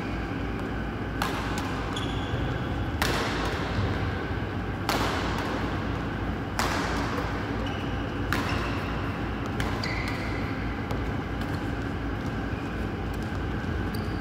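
Badminton racket hitting shuttlecocks in a multi-shuttle drill: six sharp hits about every two seconds, each trailing off over a second or so, over a steady low hum.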